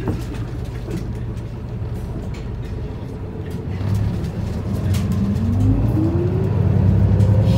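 Isuzu Erga city bus heard from the passenger cabin as it pulls away: its four-cylinder turbo diesel runs steadily, then from about four seconds in grows louder under acceleration, with a whine that rises steadily in pitch.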